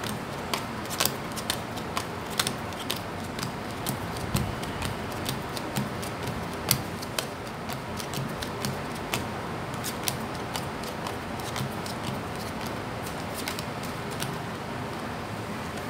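A deck of Cigano fortune-telling cards being dealt out by hand onto a satin-covered table: irregular light clicks and snaps as cards slide off the deck and land, more frequent in the first half, over a steady hiss.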